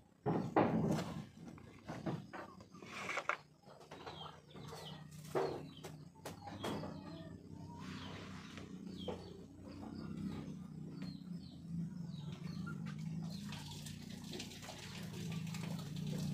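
Knocks and bumps of gear being handled, loudest in the first few seconds, with a few short bird chirps in the middle. A steady low hum grows louder in the second half.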